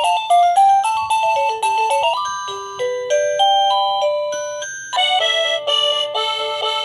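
Plug-in wireless doorbell chime playing its built-in electronic melodies, a bright tune of quick stepping notes, as the chime selection is stepped through one tune after another; a new tune starts abruptly about five seconds in.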